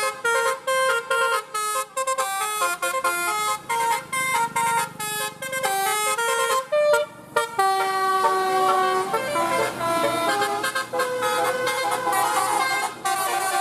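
A tour bus's Basuri telolet musical horn playing a tune: a quick run of short notes for about the first seven seconds, then longer held notes.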